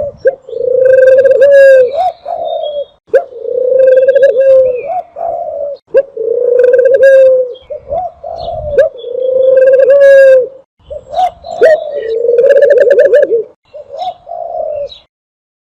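Dove cooing: a run of low, repeated coo phrases, each about a second and a half long with an upward lilt at the end, coming every two to three seconds.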